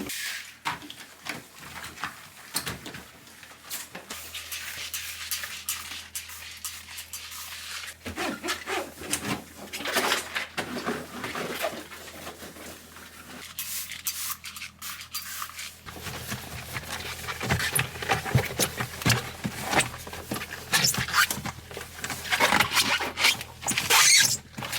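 Household cleaning and tidying sounds: a continual run of clicks, light knocks and rubbing as things are handled and wiped, over a low steady hum from about four seconds in.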